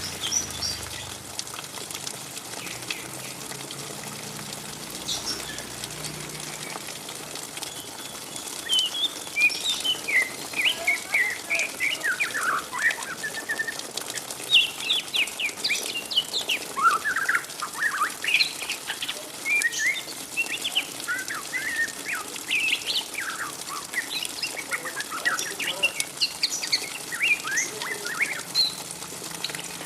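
Juvenile white-rumped shama, about three to four months old, doing its 'ngriwik' twittering chatter: a fast run of short, high chirps. It is sparse at first and becomes dense and continuous from about eight seconds in.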